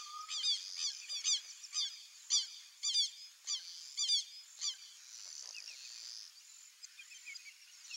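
A mixed flock of wetland birds calling. A string of sharp, strident calls comes about twice a second for the first four and a half seconds over a dense chatter of many birds, then thins out. A single lower whistle sounds at the very start.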